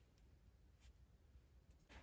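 Near silence: room tone with a few faint clicks.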